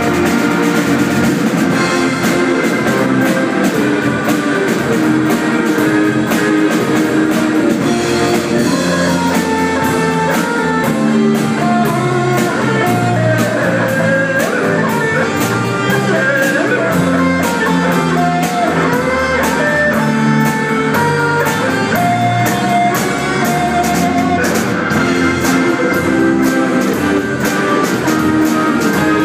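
Live band playing: electric guitars over a drum kit, with a continuous beat throughout.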